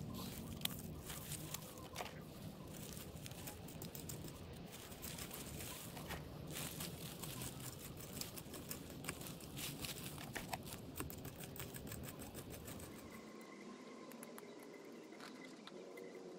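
Rustling and crunching of dry garden debris being handled, with many small clicks and crackles. About thirteen seconds in the low rumble underneath drops out abruptly.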